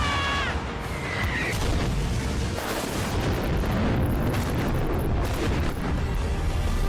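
Anime battle sound effects played from a clip: a pitched, wavering tone cuts off about half a second in, then continuous rumbling explosions and booms with music underneath.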